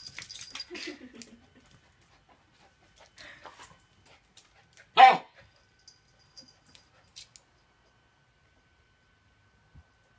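Husky-type puppy at play: scuffling and clicking of paws on a wooden floor, a short low falling whine in the first second or so, and one loud, short bark about five seconds in.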